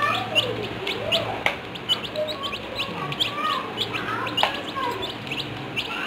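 Baby chicks peeping: short, high chirps that slide down in pitch, about three or four a second.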